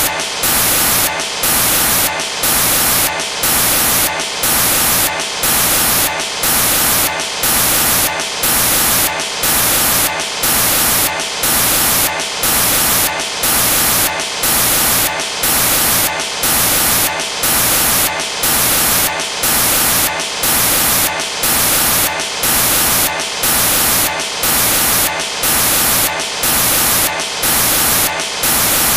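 Loud static hiss that dips briefly in an even rhythm, about three times every two seconds: corrupted audio on a broken stretch of the recording.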